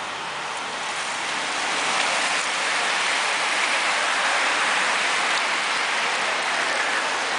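A large bunch of road racing bicycles passing, a steady hiss of tyres on wet asphalt that swells about two seconds in as the group goes by.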